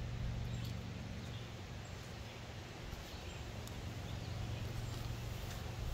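Outdoor woodland ambience: a steady low rumble with a few faint, sharp clicks now and then.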